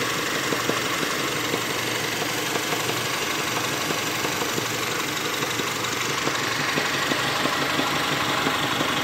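Honda Civic engine idling steadily, with a slight knocking coming from the engine.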